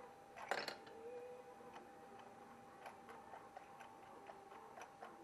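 Metal spacers clicking as they are fitted by hand against a scooter crankcase: a cluster of sharp clicks about half a second in, then faint scattered ticks over a low steady hum.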